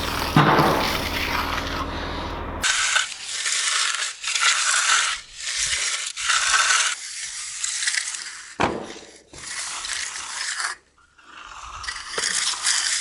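Hand tools scraping over wet concrete in repeated strokes, about one or two a second with short pauses between them. A low machine hum runs under the first couple of seconds, then stops abruptly.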